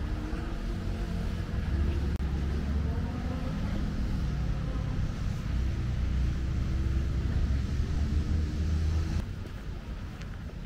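Low rumble of city road traffic with a faint engine hum over it, dropping away abruptly near the end.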